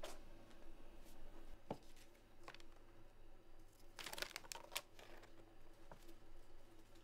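Faint rustling and light taps of magazines being handled and pushed onto a shelf, with a short run of paper rustle about four seconds in, over a low steady hum.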